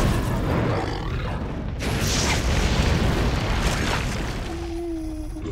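Cartoon sound effect of a volcanic eruption: a deep, dense rumbling boom that slowly fades, under background music, with a short steady tone near the end.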